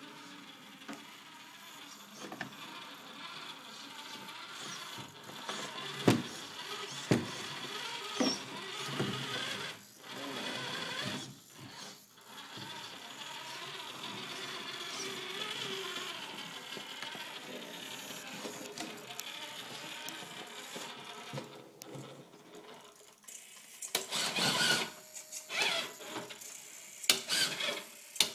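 Venom Creeper RC rock crawler's motor and gear drivetrain whining as it creeps and strains over logs and rocks, with occasional knocks of tires and chassis against the obstacles. Near the end it gets louder and choppier in bursts as it climbs against the wall.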